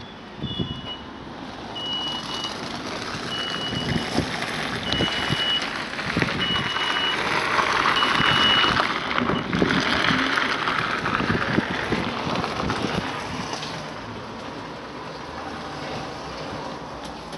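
A vehicle's reversing alarm beeping, a high tone repeated about six times with one beep every second and a half, stopping about halfway through. A rush of noise swells up around the middle, with a few dull knocks.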